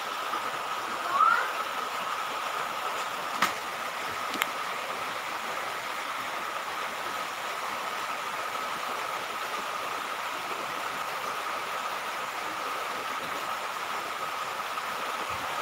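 Steady background hiss with a faint constant tone in it, broken by a short rising chirp about a second in and two sharp clicks at about three and a half and four and a half seconds.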